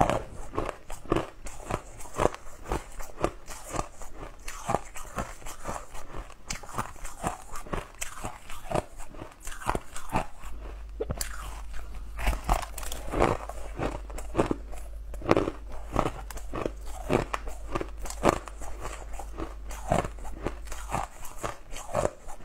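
Chunks of crushed frozen ice bitten and chewed close to a lapel microphone: a steady run of sharp, crackly crunches, several a second.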